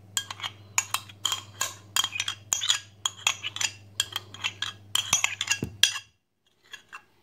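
Metal spoon clicking and scraping against a container in quick, irregular strokes while yogurt is spooned out, stopping suddenly about six seconds in.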